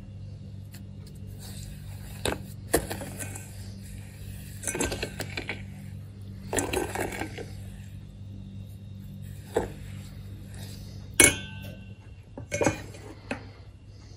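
Metal spoon stirring and scraping a thick mixture in a stainless steel bowl, with sharp clinks of spoon on steel; the loudest clink, about eleven seconds in, rings briefly. A low steady hum underneath stops near the end.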